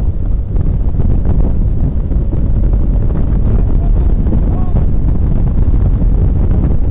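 Acura NSX at speed on a racetrack, heard from inside the cabin: a loud, steady low rumble of wind buffeting the microphone over road and engine noise.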